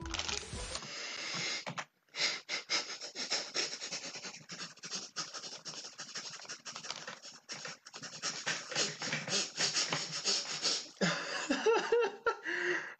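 A man laughing hard, mostly in breathy, wheezing gasps without much voice, breaking into voiced laughter near the end.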